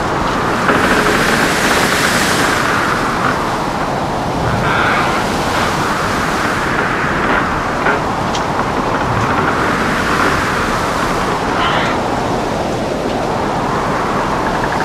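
Ship at sea in a storm: a dense, steady rush of wind and breaking waves with a low rumble underneath, surging and easing every few seconds. A few short clicks come about halfway through.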